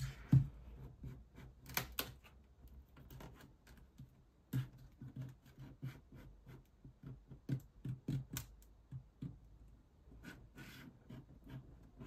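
Irregular plastic clicks, snaps and scratching as the red plastic housing of a LAUNCH X-431 PRO3S+ tablet is handled and pried apart at its edge with a plastic pick, with the loudest snap about half a second in.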